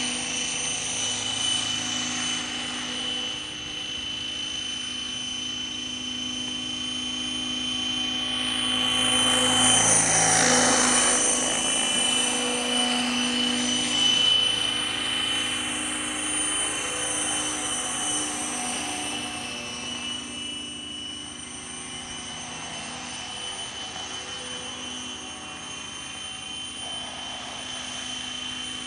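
Electric-powered scale Hughes 500 RC model helicopter on Raptor mechanics flying: a steady high motor and gear whine with the chop of the rotor. It grows loudest as the helicopter passes close about ten seconds in, the pitch sweeping as it goes by, then fades as it flies farther off.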